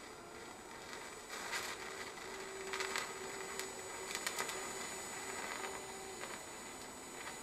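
TIG welding arc on sheet-steel car floor panel: a steady hiss and hum, with a few short crackles about one and a half, three and four seconds in.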